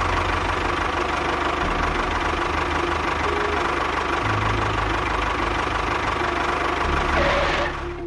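A steady engine-like running sound: a rapid low chugging under a constant hiss, which drops off abruptly just before the end.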